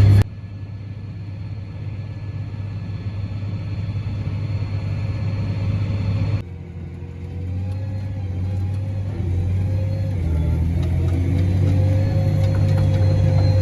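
Heavy farm machinery's diesel engine running with a steady low drone. It drops off abruptly near the start and again about halfway, then grows louder, with a whine rising in pitch near the end.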